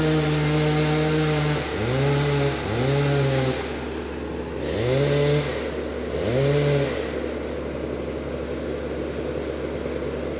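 Two-stroke chainsaw held at full throttle, then blipped in four short revs, each rising quickly to a high whine and dropping away, before it falls back. A steady low rumble of other machinery runs underneath.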